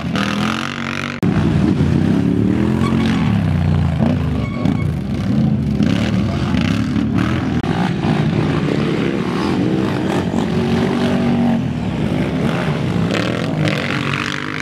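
Racing ATV engines revving up and down as quads accelerate hard along a dirt course. The sound jumps abruptly about a second in.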